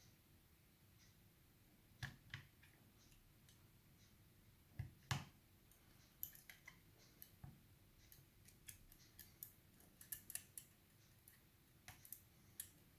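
Faint small metallic clicks and taps of a pick and tension tool working the levers of an Asec 5-lever mortice lock, lifting the levers one by one from a false set. Two louder knocks come about five seconds in, then a quicker run of light ticks.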